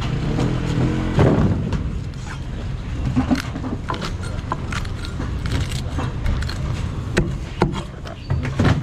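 Cleaver scraping and cutting a fish on a wooden chopping board: a scattered series of short sharp clicks and knocks from the blade on the fish and board, over a steady low rumble.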